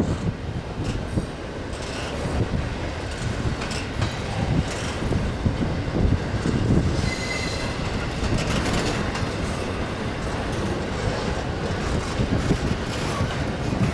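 Cars of a Union Pacific freight train rolling past: a steady rumble of steel wheels on rail with irregular clacks, and a brief high wheel squeal about seven seconds in.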